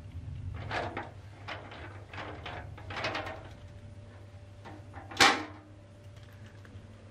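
Shutter slats of a Panasonic FV-40AFU industrial exhaust fan being lifted and let go by hand, clattering lightly several times. About five seconds in, one sharp, loud clack as the slats drop shut.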